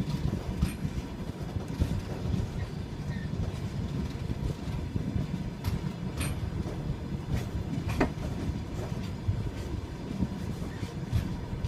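Railway carriage wheels clattering over rail joints: a steady low rumble with sharp knocks at irregular intervals, the loudest about eight seconds in.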